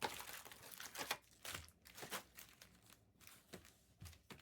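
Plastic wrapping on trading-card boxes crinkling and tearing as it is opened by hand: a faint run of irregular crinkles and short rips.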